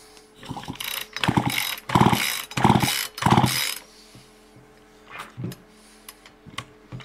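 Poulan Pro chainsaw's recoil starter cord pulled several times in quick succession, starting about a second in. The starter ratchets and the small two-stroke engine turns over without firing, with what the owner calls great compression.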